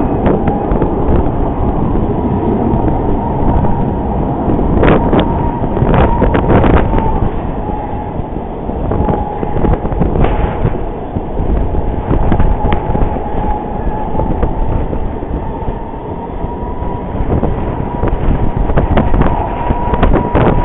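Jet airliner engines rumbling with a thin, steady whine, under wind buffeting the microphone with a few knocks.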